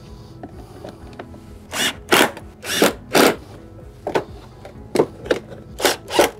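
A run of short, rough bursts from a cordless impact driver driving screws into a plastic storm-drain channel. The bursts begin about two seconds in, about nine in all.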